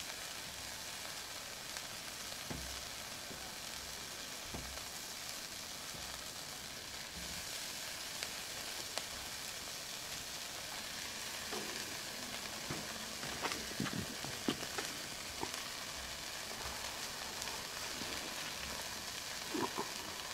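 Duck meat sizzling on a charcoal grill: a steady hiss with scattered small pops, a little stronger about a third of the way in.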